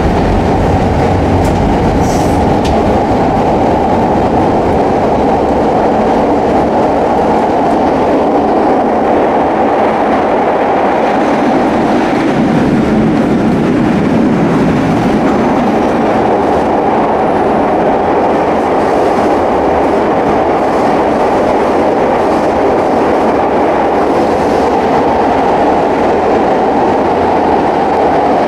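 Steady wheel and track noise inside a CTA 2600-series rapid-transit car running at speed through a subway tunnel.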